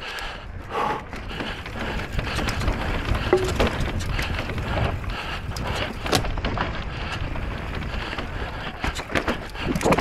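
E-bike descending a rough mountain trail at race speed: steady tyre noise over rock and gravel with frequent rattling knocks from the bike, and wind on the microphone.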